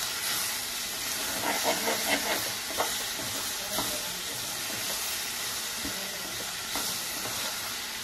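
Onions and spices sizzling in oil in a kadhai, a steady hiss, while a spoon stirs and scrapes the pan, knocking against it several times around one and a half to three seconds in.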